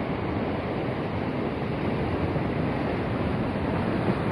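Steady rushing of a river flowing past the rocks, mixed with wind on the microphone.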